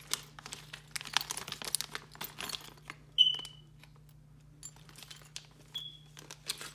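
Plastic packaging crinkling and rustling as RC car parts are handled, then two short high pings that fade quickly, the first about three seconds in and the loudest, the second fainter near the end.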